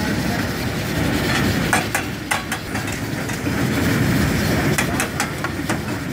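A steel ladle clinking and scraping against a metal frying pan and serving dish as chicken curry is scooped and poured out. There are sharp clinks about two seconds in and again about five seconds in, over a steady low rumbling noise.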